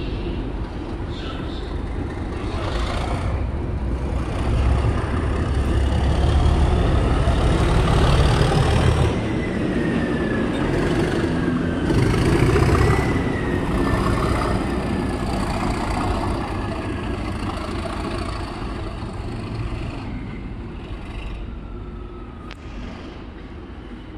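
Diesel-hauled test train passing: coaches rumbling by, then the rear diesel locomotive's engine passes, loudest about halfway through, with a high whine gliding up and down. The sound fades as the train draws away.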